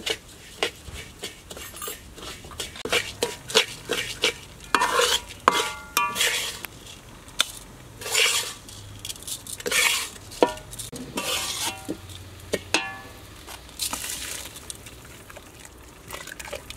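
Metal spoon or ladle stirring and scraping in a cooking pot, with irregular clinks and scrapes, some of them ringing briefly.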